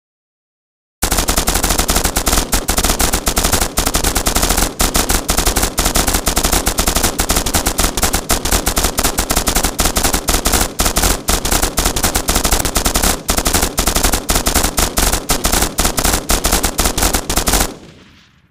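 M249 light machine gun firing one long full-auto burst: a continuous rapid stream of shots that starts about a second in, runs for some sixteen seconds, then stops with a short fading tail.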